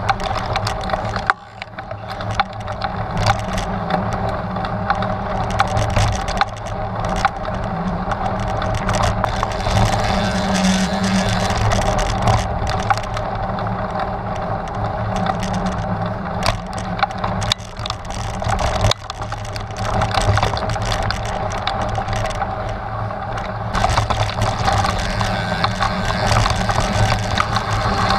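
Trek Stache 9 29+ hardtail mountain bike ridden over a rough, rocky trail: tyres crunching over rocks and gravel and the bike rattling and clicking on every bump, with a constant low rumble. The noise dips briefly twice.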